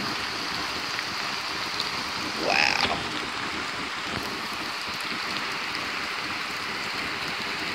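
Steady rushing of a creek in flood, its water running high and fast, with rain falling. About two and a half seconds in, a brief pitched sound rises and falls over it.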